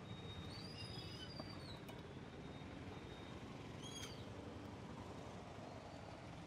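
Steady outdoor background noise with two bird calls: a drawn-out arching call about half a second in, and a short chirp about four seconds in. A faint high whine stops about two and a half seconds in.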